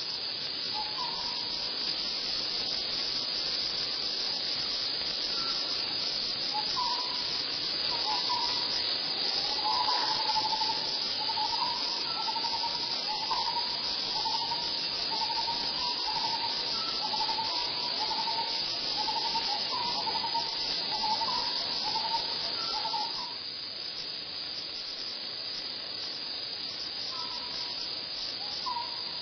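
Forest insects, cicadas or crickets, making a steady high drone, with a string of short chirping calls repeating about once a second through the middle.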